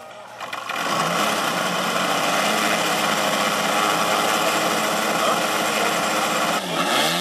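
Engine of a large scale model racing aircraft spun up with a handheld electric starter, catching within the first second and then running steadily. Near the end its pitch dips and rises as the throttle is worked.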